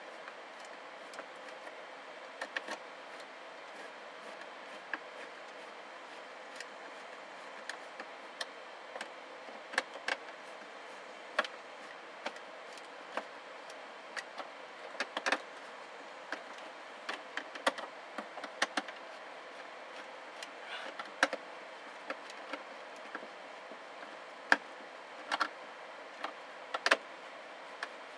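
Irregular light clicks and taps of hands handling a car speaker, screws and the plastic roof lining while the speaker is fitted into a loader cab's ceiling, over a faint steady hiss.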